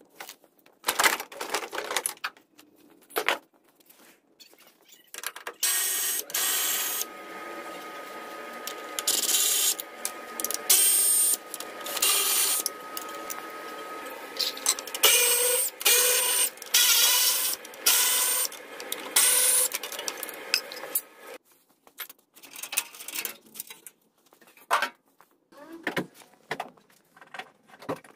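Workshop noise from stripping a crash-damaged car's front end: scattered clanks and knocks, and for about fifteen seconds in the middle a continuous mechanical clatter with a steady whine that stops about two-thirds of the way through.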